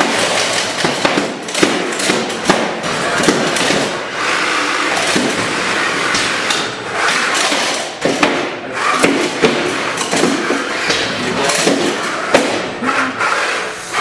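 Small combat robots fighting in an arena: a continuous clatter of knocks and thuds as they drive about and bang into each other and the arena walls.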